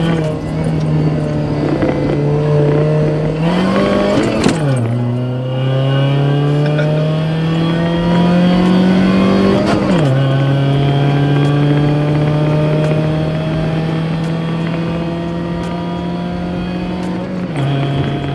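Supercharged 2007 Chevrolet Cobalt SS's 2.0-litre four-cylinder pulling under hard acceleration with supercharger whine, heard from inside the car. Its pitch climbs through a gear, drops sharply at an upshift about four and a half seconds in, and climbs again to a second shift about ten seconds in. It then holds nearly steady revs, dropping once more near the end.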